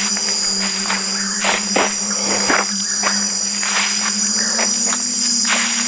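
Steady, dense high-pitched chorus of night insects, with a steady low hum beneath it. Irregular crunching footsteps on dry leaf litter and dirt cut through it every half second or so.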